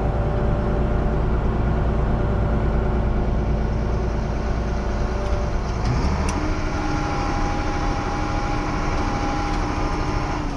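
Heavy diesel engine of farm machinery running steadily with a deep drone. About six seconds in, its tone shifts and a steady whine comes in over it.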